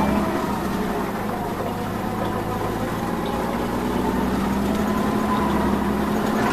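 A vehicle engine idling steadily, a low, even drone.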